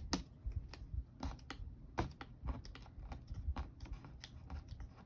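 Irregular light clicks and taps, a few a second, from hands handling paper bills and a small cash envelope.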